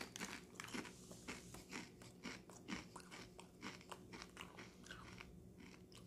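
A person chewing Doritos tortilla chips, crisp crunches coming about twice a second.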